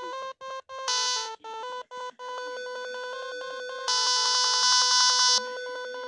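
Electronic phone ringtone melody, chopped into quick stutters with sudden silent cuts in the first two seconds, then repeating steadily; a brighter, louder layer joins for about a second and a half near the middle.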